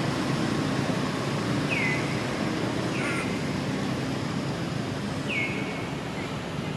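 Three short high animal calls, each dropping quickly in pitch and then holding briefly, about two, three and five and a half seconds in, over a steady low background din.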